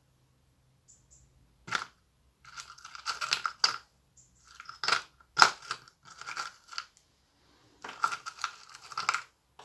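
Small parts clicking and scraping as fingers rummage through a small bowl, in short bouts with a few sharp clicks.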